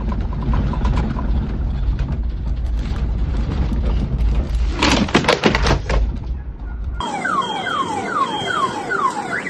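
Deep rumbling with rattling and knocks of earthquake shaking, with a short loud burst about five seconds in. Then, after an abrupt cut, a car alarm goes off, cycling through repeated falling siren sweeps and switching to a fast up-and-down warble near the end.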